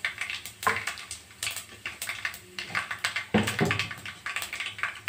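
Cumin, fennel and mustard seeds crackling in hot oil in a kadai as they are tempered: a run of irregular sharp ticks and pops, with one louder knock a little past three seconds in.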